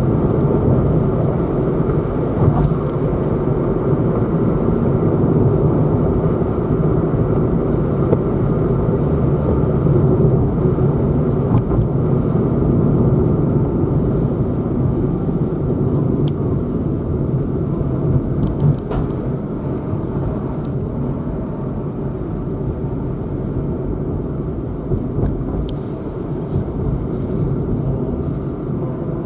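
Steady engine and road noise of a car being driven, with a few faint ticks over it.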